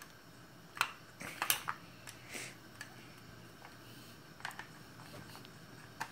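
Small hard-plastic Shopkins carry case being handled, giving a string of sharp clicks and light knocks, most in two clusters: about a second in and again past four seconds.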